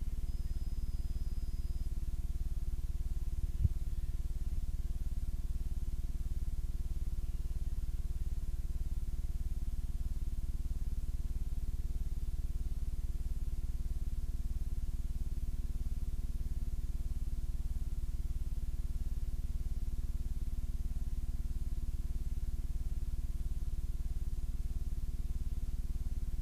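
Steady low electrical hum and noise from playback of a blank stretch of videotape, with a single click about three and a half seconds in.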